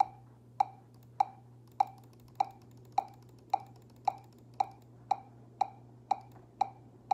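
Metronome clicking at a steady beat, a little over one and a half clicks a second, then speeding up to about two clicks a second partway through, with a steady low hum from the guitar rig underneath.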